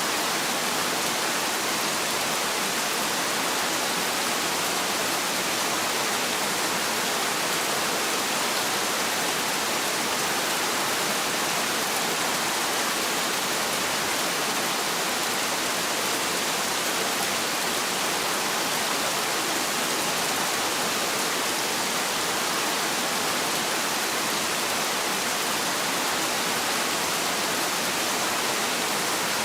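Heavy rain falling as a steady, even hiss, with no thunder and no single drops standing out.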